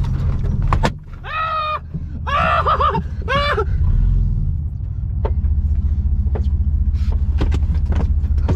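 Pickup truck engine idling, heard inside the cab as a steady low rumble that pulses evenly in the second half. A man gives a few high-pitched yells and laughs about one to three seconds in, with scattered clicks and rattles around them.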